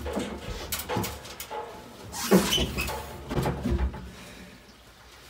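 Heavy metal clunks and scraping as a 5 hp cyclone dust collector's motor assembly is manhandled and seated onto the collector housing, with the loudest knock a little over two seconds in. A man's strained voice breaks in briefly as it drops into place.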